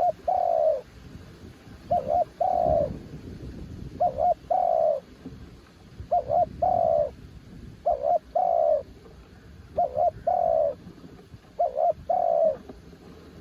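Spotted dove cooing, repeating its phrase of two short notes followed by a longer, drawn-out coo about every two seconds, seven times.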